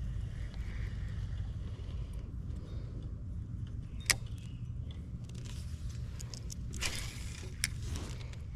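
Wind buffeting the microphone as a steady low rumble, with a sharp click about four seconds in and a brief rustling hiss followed by a small click near the end.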